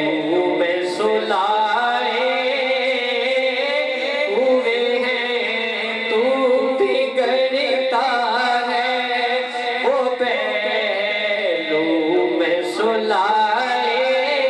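A man's voice chanting a devotional recitation into a microphone, in long, melodic held phrases.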